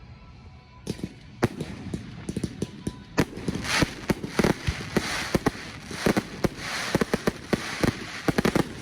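Fireworks display: a few sharp bangs of bursting shells about a second in, building into a dense run of rapid cracks and crackling from about three seconds on.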